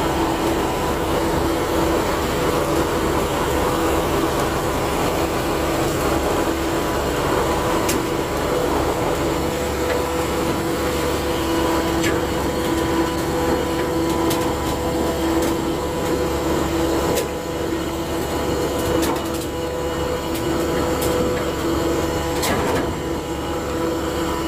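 Ship's engine running steadily with a constant hum, over the rush of churning water along the hull. A few sharp clicks come in over the second half.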